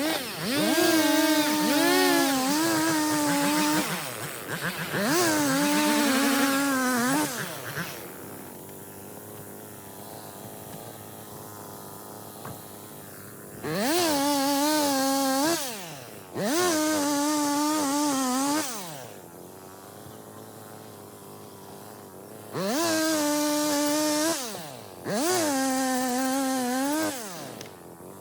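Two-stroke chainsaw revved to full throttle in bursts of about two seconds, six times in pairs, with its pitch sweeping up and holding steady. Between the pairs it drops back to a lower idle.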